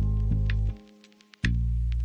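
Background music: held low notes with regular sharp percussive clicks, cutting out for about half a second in the middle before coming back in.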